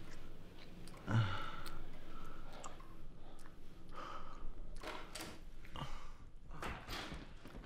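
A person breathing and sighing, the loudest sigh about a second in, with a few soft clicks.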